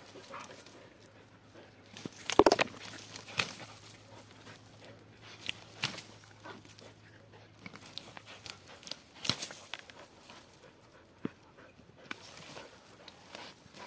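A dog snuffling and scratching at a tegu lizard's burrow under a fallen branch, with scattered crackles from dry leaves and twigs. A louder knock comes about two and a half seconds in.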